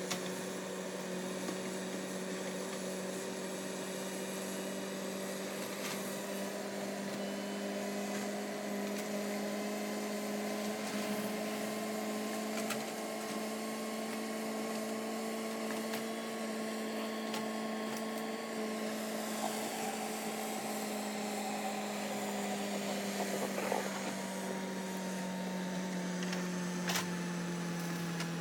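Steady motor hum: several held tones that drift slightly in pitch, with no big changes in load.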